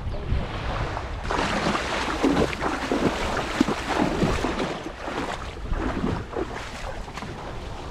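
Feet splashing and wading through shallow seawater as a kayak is pulled up onto the beach, from about a second in until about five seconds. Wind buffets the microphone, mostly at the start.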